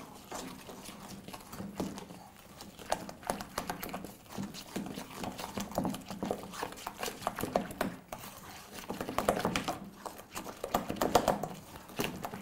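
Wooden spoon stirring thick pancake batter in a stainless steel bowl: irregular knocks and scrapes of the spoon against the metal, coming faster in the second half.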